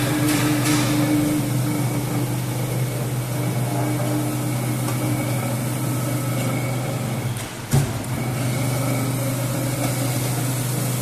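Electromagnetic straight-knife grinding machine running: a steady motor hum with an even grinding hiss as the grinding head travels along a long blade. A single short knock about three-quarters of the way through.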